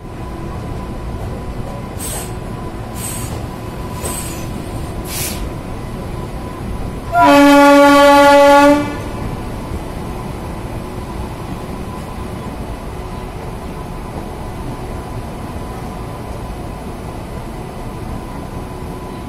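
Passenger train running on the rails with a steady rumble, heard from a coach of a train hauled by a WAP-7 electric locomotive; a bit over seven seconds in, the locomotive's horn sounds once for a little under two seconds. About two seconds in, four short sharp ticks come a second apart.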